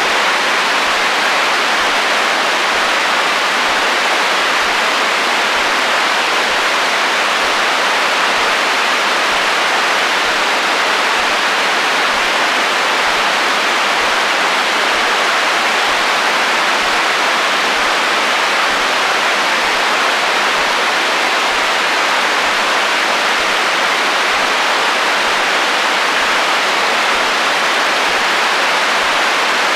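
Radio static: the steady, even hiss of FM radio interference noise, with little bass and no tones or breaks.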